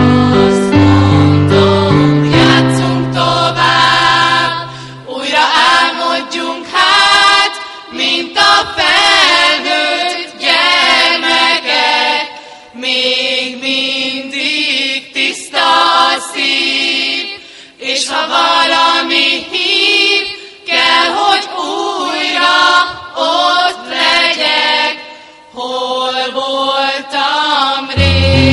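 Mixed school choir of boys and girls singing. Steady low electric-piano notes accompany the first few seconds, the voices carry on alone with short breaths between phrases, and the keyboard comes back in near the end.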